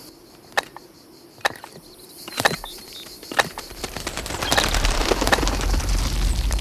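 Cartoon earthquake sound effect: a few sharp knocks roughly a second apart, then from about four seconds in a deep rumble builds with dense rattling and crackling on top, growing louder.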